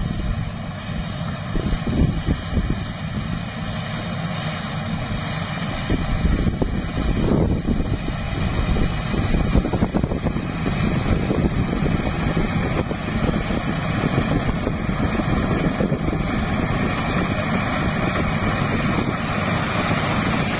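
Maxxi Bimo NDR 102L rice combine harvester running as it cuts standing rice, its engine and threshing machinery getting louder as it comes closer. Wind buffets the microphone.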